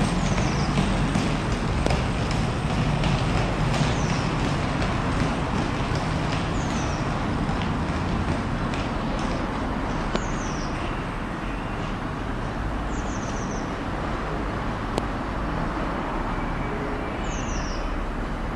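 DB Cargo Class 66 diesel locomotive's two-stroke EMD V12 engine running with a steady low drone as it slowly approaches with a freight train. Short high falling chirps come every few seconds.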